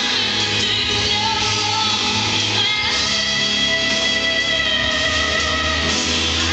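A rock-style song with singing and guitar, the music the ice dance programme is skated to, playing without a break.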